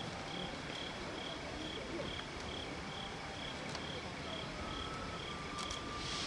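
Cricket chirping evenly at one high pitch, about two chirps a second, over a low background rumble; a hiss rises just before the end.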